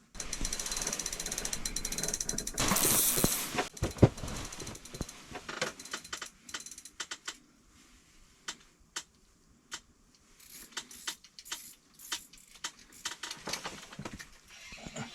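Fishing reel's line-out clicker ratcheting as line is pulled off. It starts suddenly with a fast run of clicks, gets louder around three seconds in, then breaks into irregular single clicks as the pull slows.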